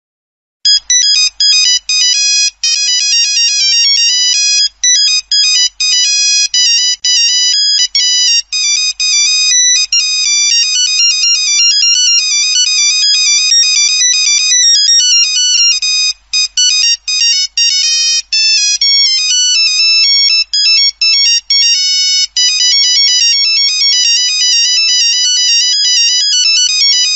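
Polyphonic Nokia 3220 mobile-phone ringtone: a fast electronic melody of short, quick notes, starting about half a second in, with a few brief breaks.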